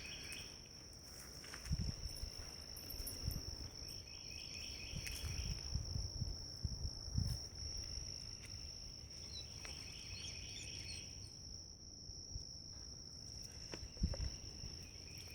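Insects trilling: one steady high-pitched trill throughout, with two runs of rapid pulsed chirping, the first about three seconds in and the second about nine seconds in. Soft low thumps of footfalls come and go underneath.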